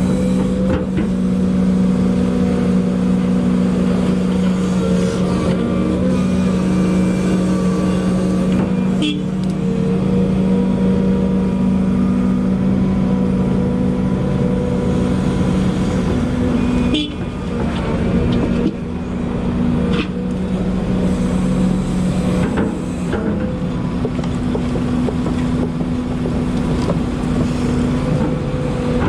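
Volvo EC220E excavator's diesel engine and hydraulics running steadily at working speed, with a few sharp knocks.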